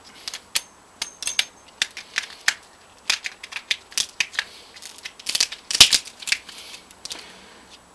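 Screwdriver prying and scraping at the clips on a CRT tube's deflection yoke. The result is a run of sharp clicks and scrapes, busiest about halfway through.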